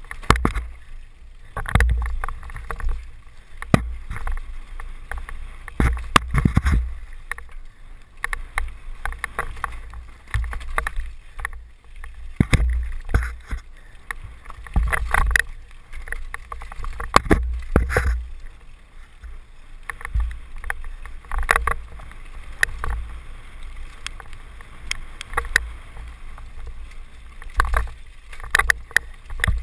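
Downhill mountain bike rattling and clattering over a rocky trail, with frequent irregular sharp knocks from the bike hitting rocks over a strong low rumble.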